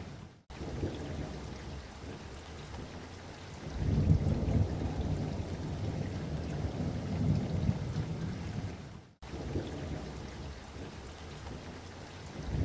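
Low rumbling noise that swells and eases, dropping out to silence for a moment twice, once about half a second in and again about two thirds of the way through.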